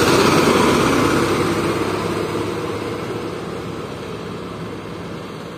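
A bus engine and its tyre noise as the bus overtakes close by and pulls in ahead. The sound is loudest at the start and fades steadily as the bus draws away.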